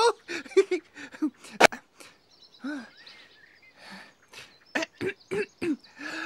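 A Teletubby's high, sing-song voice making a string of short wordless syllables, with a sharp click about a second and a half in and faint birdsong behind.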